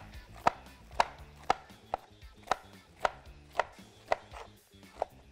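Chef's knife slicing a yellow bell pepper into strips on a wooden cutting board: sharp, evenly paced knife strikes on the board, about two a second.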